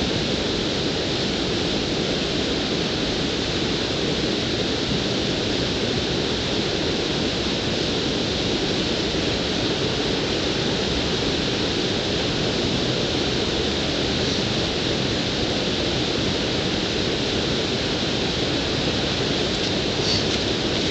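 Water pouring over a low concrete weir, a steady unbroken rush.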